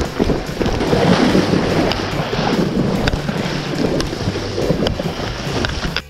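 Heavy rain pouring down, with wind buffeting the microphone: a steady rushing noise broken by a few sharp ticks.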